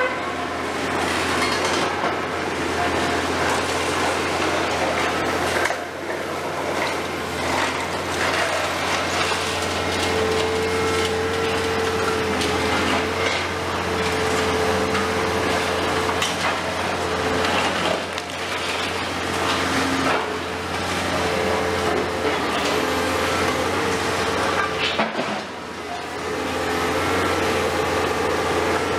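Heavy demolition excavators running, a steady low engine drone under irregular knocking and clattering of concrete and rubble being broken and dropped. A steady whine joins about a third of the way in and holds until near the end.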